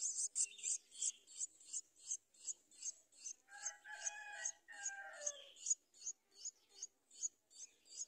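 Streak-eared bulbul nestlings begging at the nest: rapid, evenly spaced high chirps, about three a second. A longer, lower call sounds in the middle and falls away at its end.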